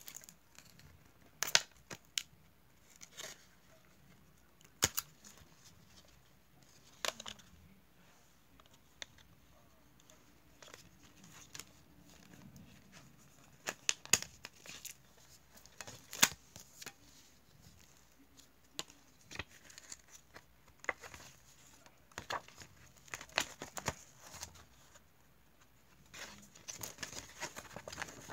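A plastic CD jewel case and its paper booklet being handled by hand: scattered sharp clicks and snaps with crinkling, and a denser stretch of rustling near the end.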